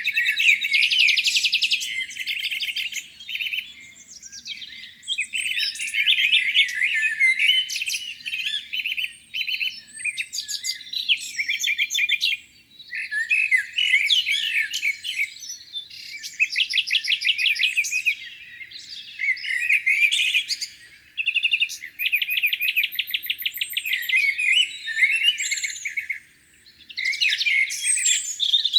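Songbirds singing in a spring dawn chorus: repeated phrases of fast trills and chirps, broken by short pauses.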